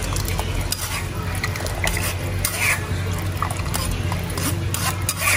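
Metal ladle scraping and pressing fermented rice through a wire-mesh strainer held over a pot of broth, with scattered light clicks of metal on metal. A steady low hum runs underneath.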